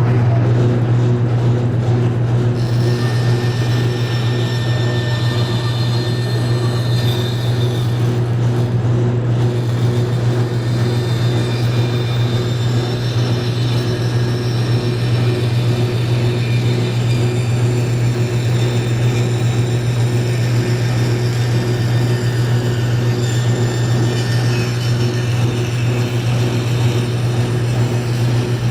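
Woodworking band saw running with a strong, steady motor hum. From about two seconds in, a hiss joins it, the blade cutting a curve through wood.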